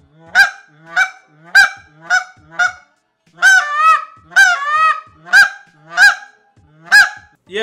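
Zink Nightmare on Stage short-reed goose call, blown fresh out of the box and not yet tuned: five quick honks, two longer drawn-out notes, then three more single honks, each note cracking from a low tone to a high one. The call sounds high and squeaky.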